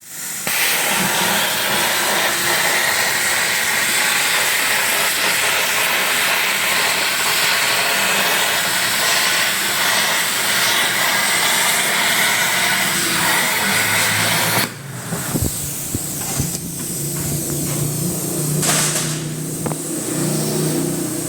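TIG (argon) welding arc hissing steadily, cutting off abruptly about two-thirds of the way through, after which a quieter machine hum with a few faint crackles remains.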